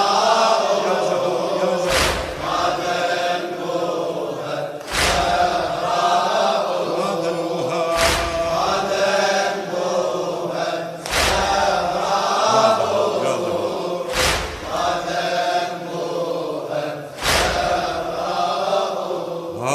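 Men's voices chanting a Shia latmiya mourning refrain in unison. A heavy deep thump marks the beat about every three seconds.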